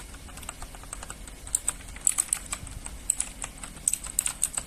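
Typing on a mechanical keyboard fitted with the reviewed switches: a fast, irregular run of sharp key clicks, sparser for about the first second and a half, then denser.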